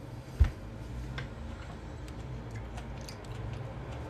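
A low thud about half a second in, then a man chewing a mouthful of gnocchi with his mouth closed: faint scattered clicks over a steady low hum.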